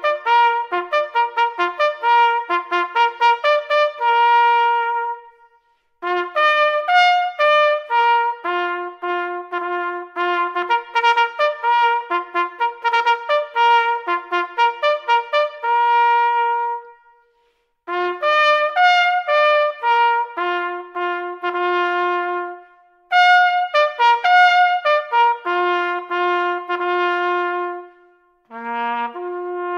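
Solo trumpet playing a bugle-call melody: phrases of quick notes, each ending on long held notes, with short pauses between the phrases.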